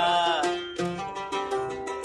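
Oud played solo: a quick melodic run of plucked notes in a Middle Eastern style. A man's sung note slides down and ends about half a second in, just as the oud run takes over.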